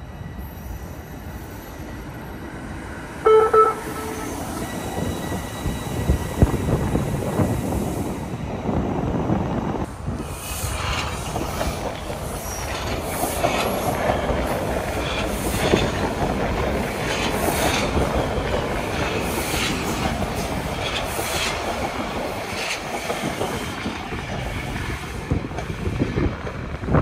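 Toronto TTC subway train approaching and passing on open-air track, with a short horn blast about three seconds in. After that comes a steady rumble of wheels on rail, with clicking and some wheel squeal as the cars go by.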